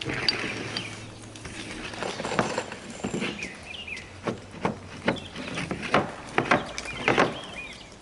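Irregular knocks and thuds, about a dozen spread over several seconds, with a bird chirping in the background.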